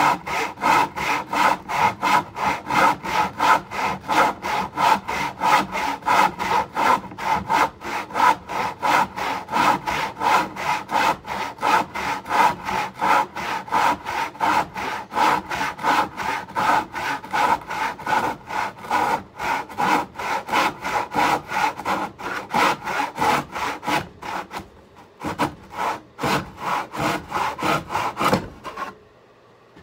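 Handsaw cutting through a poplar board in quick, even back-and-forth strokes, a few strokes a second. The sawing pauses about 24 seconds in, resumes for a few strokes, and stops near the end.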